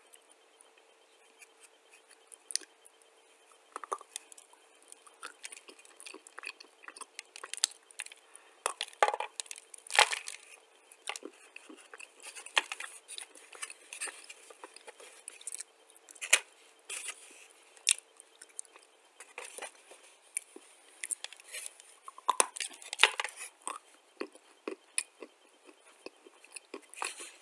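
Dry white clay being crunched: irregular crisp crunches and crackles as lumps are chewed and crumbled, some much sharper than others.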